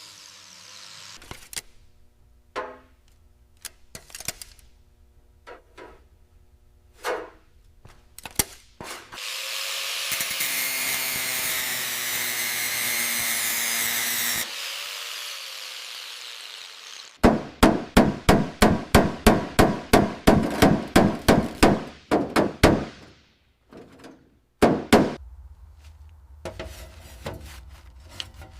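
Workshop tool sounds: scattered knocks and taps, then a power tool runs for about five seconds and winds down, followed by a fast run of hammer blows at about three to four a second, with a few more strikes after a pause.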